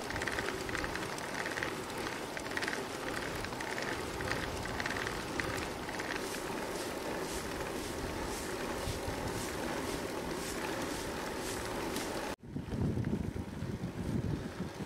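Bicycle riding on asphalt: steady rolling and wind noise with a faint ticking about twice a second. About twelve seconds in the sound cuts and gusty wind buffets the microphone.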